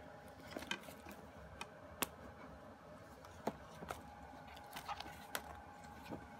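Scattered light clicks and taps as hands handle an album's CD on its tray hub and the paper booklet and inserts, over a faint steady hum.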